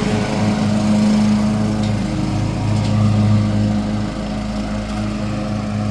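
Lawn mower running steadily while mowing grass, its hum wavering slightly in strength.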